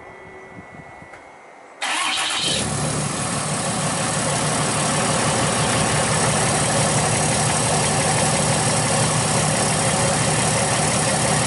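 Dodge Ram's Cummins inline-six turbo-diesel fires up about two seconds in and settles into a steady idle through its newly installed 5-inch exhaust. It is the first start with the emissions equipment removed and the engine not yet tuned.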